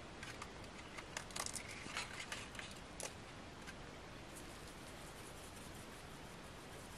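Faint rustling and light clicks from handling a foil freeze-dried food pouch while it is seasoned with salt and pepper, mostly in the first few seconds.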